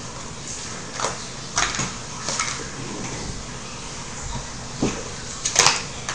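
Plastic takeout containers, lids and cups being handled: a few short clatters and crinkles, the sharpest near the end, over a steady background hiss.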